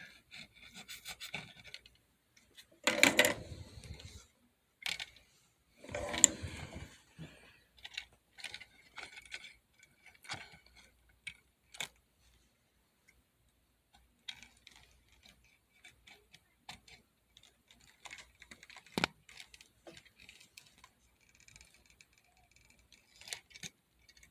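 Small hand tools scraping and rattling on the ECU's circuit board as the old capacitors are worked loose, in irregular bursts, the loudest about three and six seconds in, with one sharp click about nineteen seconds in.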